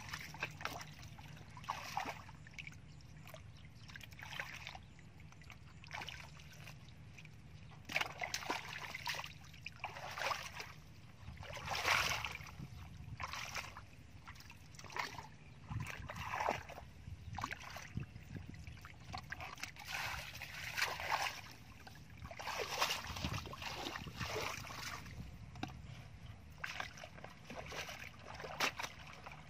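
Shallow muddy water splashing and sloshing in irregular bursts as bare feet wade and hands and a plastic basket stir through it.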